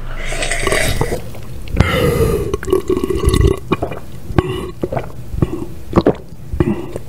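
A man making guttural, burp-like croaks and gagging noises in his throat, with wet clicks, as if trying to hack up a fish bone stuck there. The longest croak comes about two seconds in and lasts a few seconds, with shorter ones near the end.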